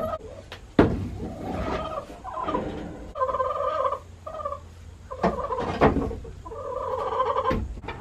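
Cordless drill running in several short bursts, backing screws out of the old wooden roosting bars, with sharp wooden knocks as the loosened bars are handled, the loudest about a second in.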